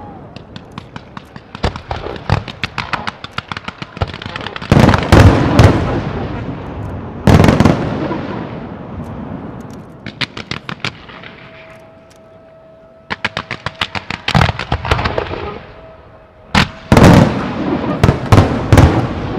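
Fireworks display: aerial shells bursting with heavy booms and crackle, and quick strings of sharp pops. The biggest booms come about five seconds in, about seven seconds in, and near the end, with a quieter lull a little past halfway.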